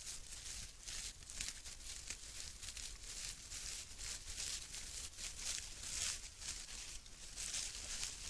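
Wild boars foraging right at the microphone, rooting with their snouts in dry grass and leaf litter: a dense, irregular rustling and crunching, over a low steady hum.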